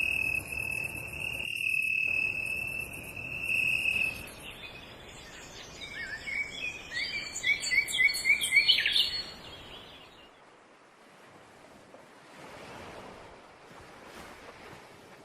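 A steady high-pitched buzzing for about four seconds, then birdsong with a quick run of repeated chirped notes. After that, soft surf washes in twice on a beach.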